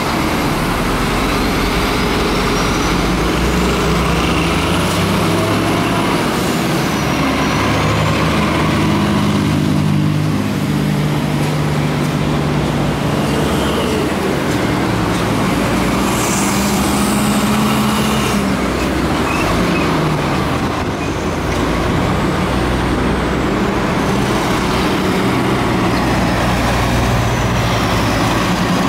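Heavy diesel tractor-trailer trucks and cars passing close by in street traffic, the truck engines running loud with their pitch shifting as they pull through. A short burst of high hissing comes about sixteen seconds in, and a faint high tone glides up and down at times.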